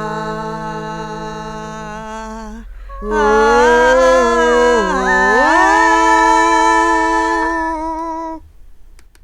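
Female voice humming long held notes with no accompaniment. One note is held, there is a short break just before three seconds in, then another long note dips in pitch and rises again before stopping a little after eight seconds.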